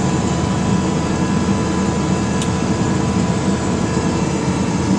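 Tractor engine running steadily as the tractor drives along at speed, a dense, unbroken mechanical drone.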